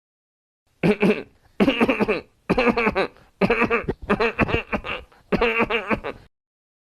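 A person coughing: six coughs in a row, roughly a second apart, each with a rough pitched sound to it. This is one of a series of recorded cough samples, played to show a type of cough.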